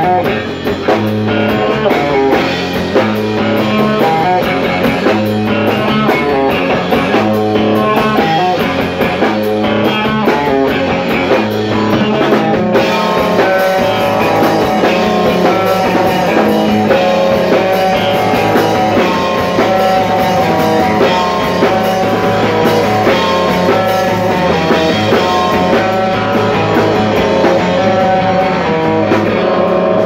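Live rock band playing loudly: amplified electric guitar and a drum kit with cymbals, instrumental with no singing.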